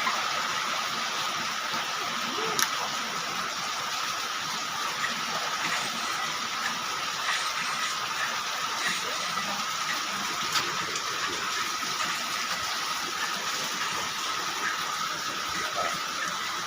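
A machine running steadily: an even hissing noise with a constant high whine and a few sharp clicks now and then.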